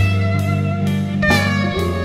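Instrumental section of a band's song: a guitar plays a lead line with bending notes over bass, while drums keep a steady beat of about two strikes a second.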